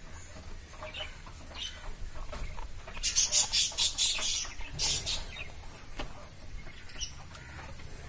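Dry wheat bran scraped out of a cup into a steel feed bowl, a run of quick scratchy strokes about three seconds in, with hens clucking in the background.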